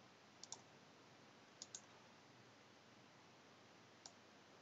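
Computer mouse button clicks: two quick pairs of clicks in the first two seconds, then a single click near the end, with near silence around them.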